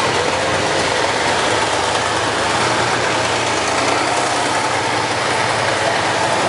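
Tank engines running as a column of tanks drives past on the street, a steady, dense din without pauses.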